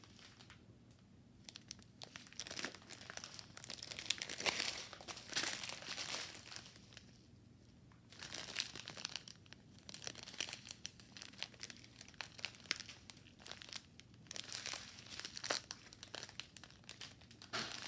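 Strips of small sealed plastic bags full of diamond-painting resin drills crinkling as they are handled and turned over, in bursts with short pauses.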